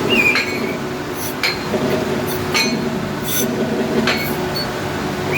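Gearbox running with a steady hum, broken by sharp metallic clicks about once a second, five in all: an abnormal gearbox noise.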